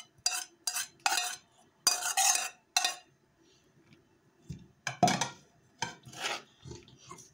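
A utensil scraping and knocking against an enamel bowl as soaked buckwheat is tipped into a frying pan. There are several quick scrapes and clinks, a pause of about a second and a half, then a few more knocks.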